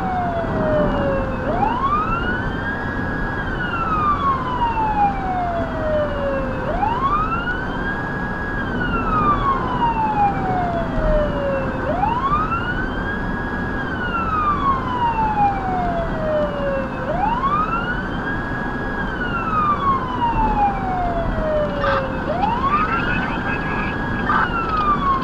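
Federal Signal Touchmaster Delta electronic siren sounding a slow wail, heard from inside the cabin over steady road noise. Each cycle rises quickly, holds briefly at the top and falls slowly, about every five seconds. A couple of faint clicks come near the end.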